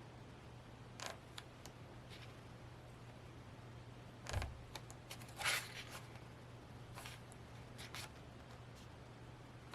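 Pages and inserts of a K-pop album photobook being turned and handled: scattered soft paper rustles and light taps, a dull thump about four seconds in and a louder rustle about a second later, over a low steady hum.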